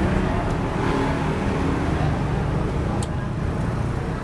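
Road traffic: a motor vehicle's engine running steadily nearby, with a short sharp click about three seconds in.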